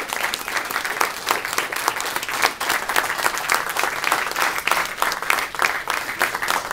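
Wedding guests applauding, a dense and steady clapping.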